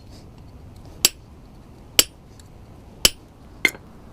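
Hammer blows on a hand chisel, cutting vein lines into a hot steel leaf held on the anvil: four sharp ringing metallic strikes about a second apart, the last two closer together.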